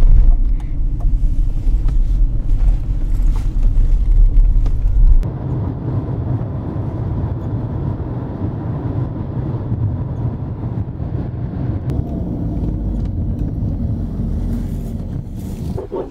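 Car cabin noise while driving: a heavy low rumble of engine and tyres on the road, which cuts over about five seconds in to a lighter, hissier rush of road and wind noise.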